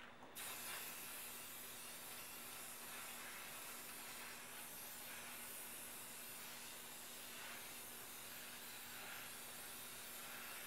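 Aerosol spray paint can hissing in one long, steady spray that starts just after the beginning.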